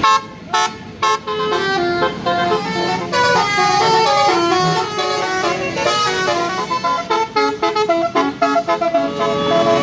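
Tour bus's Basuri telolet horn, a multi-note melodic air horn. It gives a few short blasts in the first second, then plays a tune of held notes that step up and down in pitch.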